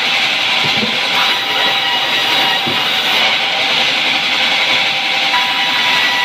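Sawmill band saw running steadily with a high, hissing whine as its blade rips a log lengthwise into a board.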